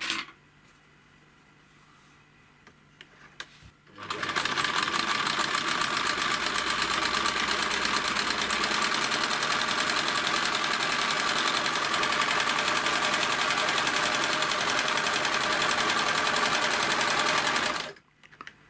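Necchi 559 household sewing machine sewing a test seam. It starts about four seconds in, runs at a steady speed with a fast even stitching rhythm, and stops shortly before the end.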